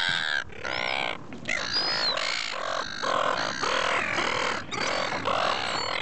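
Silver gulls calling over and over, several birds at once, short calls following one another about twice a second.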